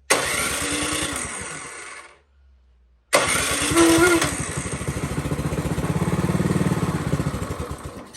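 Powersmart snow blower's small gas engine cranked twice in attempts to start. Each try turns it over with rapid even pulses that fade away rather than settle into running. It is a no-start that the owner puts down to a clogged carburetor.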